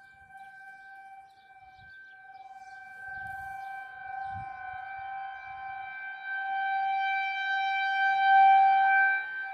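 Tornado warning siren sounding on test: a steady wail that holds one pitch, swelling from faint to loud and peaking near the end before dropping off.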